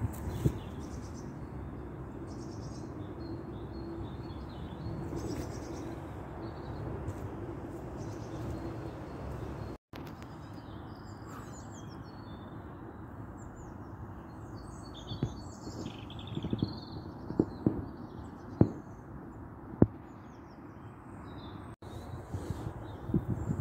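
Small birds chirping and calling over a steady low outdoor background noise, with a few sharp knocks in the second half.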